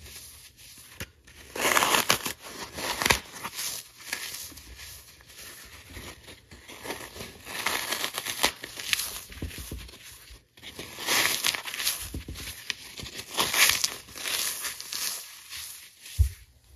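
Dry, sun-baked floral foam being crushed by hand: thumbs press into the block and fingers crumble the pieces, giving crisp crunching and crackling in three bursts a few seconds apart.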